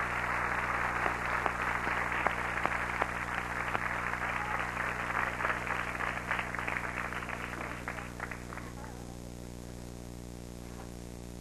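Audience applauding, the clapping thinning out and dying away about nine seconds in, leaving a steady electrical hum.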